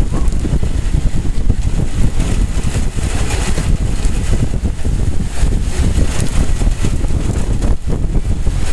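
Gusting wind of a severe thunderstorm buffeting the microphone in a rumbling roar, with rain hissing underneath.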